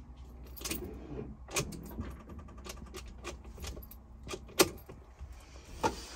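Keys jangling, with irregular clicks and knocks over a low steady hum; the sharpest knock comes about four and a half seconds in.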